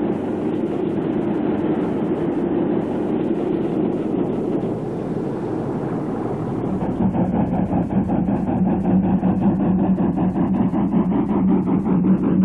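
Diesel locomotive engine running. About seven seconds in it grows louder, with a steady hum and a fast, even throb.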